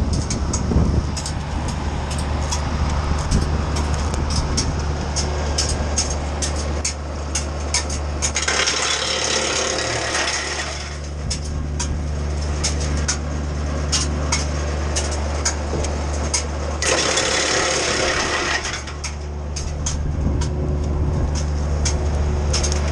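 A wood chipper and its engine running steadily while pine branches are fed through, with a constant crackle of wood being chipped. Twice, for about two seconds each, a louder hissing rush of chipping rises over the engine drone.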